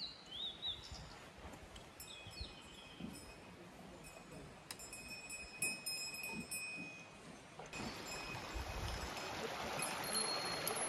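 Mountain forest ambience: a few birds chirping and whistling, then from about eight seconds in the steady rush of a stream takes over.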